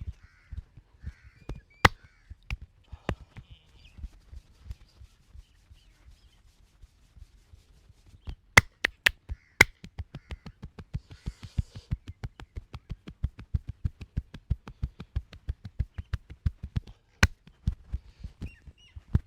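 Percussive massage strokes of hands on a person's body: a fast, even run of dull thumps, about five a second through the second half, with a few sharp cracks, four of them close together about halfway through.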